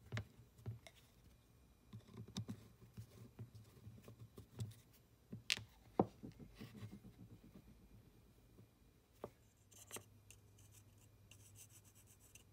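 Faint scattered clicks and scrapes of small steel parts being handled while a 1940s New Britain midget ratchet wrench is taken apart, with two sharper clicks about five and a half and six seconds in. Near the end comes a fine, light scratching: a steel pick working in the rusty pawl and gear mechanism.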